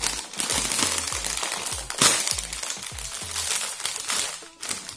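Foil Tayto Waffles crisp packet crinkling loudly as it is pulled open by hand, with one sharp crackle about two seconds in.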